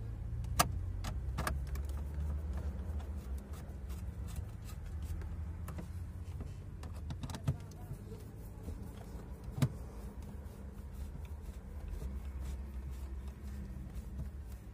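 Scattered clicks and taps of a screwdriver and small parts being worked at a Daewoo Nexia's bare steering column, the steering wheel off for a horn repair, over a steady low rumble. A few sharper clicks stand out, the loudest about half a second in and near the middle.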